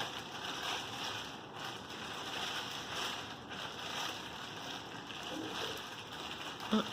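Steady hissing background noise with no distinct event.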